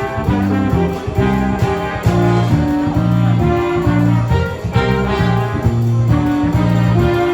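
Upbeat background music led by brass, with held horn notes over a steady rhythmic beat.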